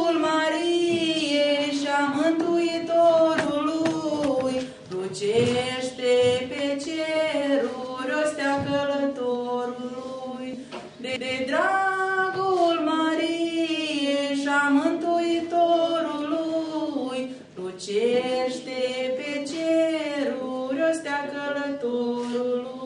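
A young woman singing solo and unaccompanied: a slow melody in long held phrases, with short pauses about every six seconds.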